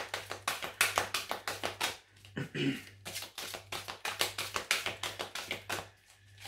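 Deck of oracle cards being shuffled by hand: a quick run of light clicks and slaps, pausing briefly about two seconds in and again near the end.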